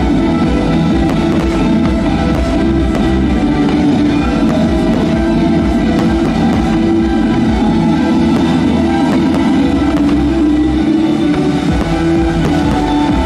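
Loud rock music with guitar and drums, playing steadily.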